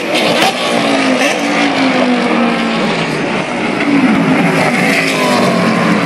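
Race car engines passing close by, their pitch falling as they brake and downshift into a corner, with sharp exhaust pops near the start. About three and a half seconds in the pitch climbs again as they accelerate away.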